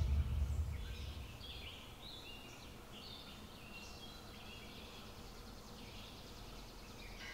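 Birds chirping and singing over faint outdoor background noise, with the tail of a music track fading out in the first second.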